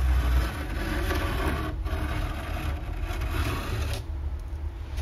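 A pencil compass scratching and rubbing as it is drawn along plywood, tracing the edge of the transom's fiberglass, over a low steady rumble. The scratching dies away about four seconds in.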